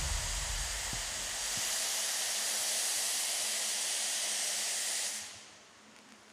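A steady hiss from a stage special-effects jet, rising in as the last low notes of the music fade in the first couple of seconds and cutting off abruptly about five seconds in.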